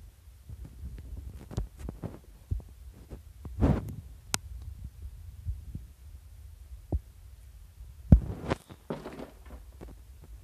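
Handling noise on a handheld camera's microphone: a low rumble with irregular thumps and rustles as the camera is moved, the loudest thump about eight seconds in.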